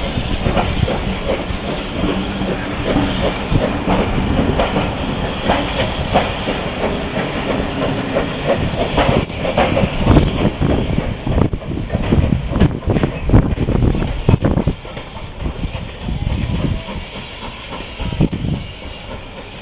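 Passenger carriages of a departing steam train rolling past on jointed track, their wheels clicking and clattering over rail joints and points over a steady rumble. The clatter thins and fades in the last few seconds as the train draws away.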